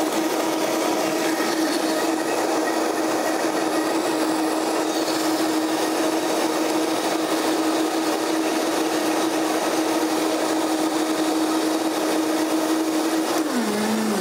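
Countertop blender running steadily, blending frozen mango and strawberries with almond milk into a smoothie; its motor pitch drops near the end as it winds down.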